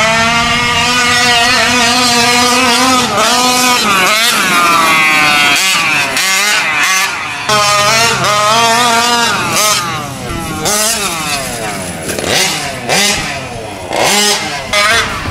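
Two-stroke gas engine of an RC short course truck, a Taylor 46GT, revving up and down again and again as the truck is driven, its pitch rising and falling with the throttle.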